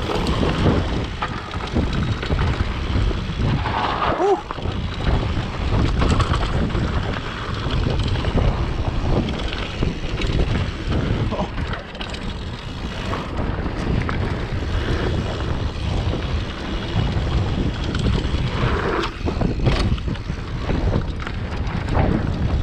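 Wind buffeting the microphone during a mountain-bike trail descent, a continuous low rumble, with the tyres running over damp dirt and the bike rattling over bumps.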